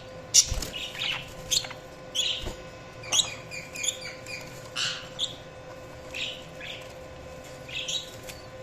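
Budgerigars chirping and warbling in a run of short, quick calls, busiest in the first half and thinning out towards the end.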